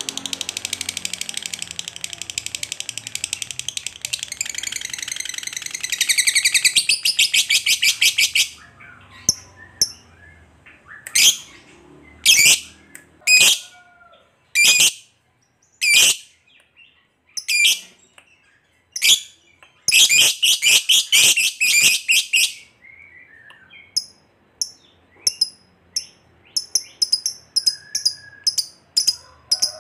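A lovebird's long 'ngekek' chatter: a fast, unbroken run of shrill, high chirps lasting about eight seconds, then single sharp calls spaced a second or so apart, a second fast run about two-thirds through, and short rapid chirps near the end.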